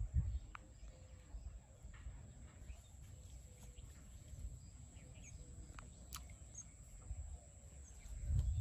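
Faint bird chirps over a quiet rural background with a steady high whine, a low rumble that swells at the start and near the end, and one sharp click about six seconds in.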